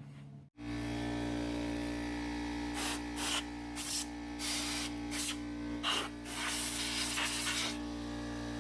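Compressed air from a blow gun, fired in about seven short blasts, blowing dust out of an ATV's clutch housing. A motor hums steadily underneath throughout.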